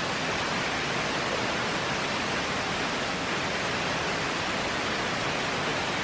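Waterfall and rapids rushing steadily: an even, unbroken hiss of falling water.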